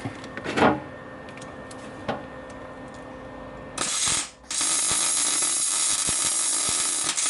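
MIG welder arc running in two bursts: a short one about four seconds in, then a steady loud hiss for about three seconds that cuts off suddenly near the end, tacking a steel washer onto a broken head bolt. Before the arc, a few light clicks and knocks.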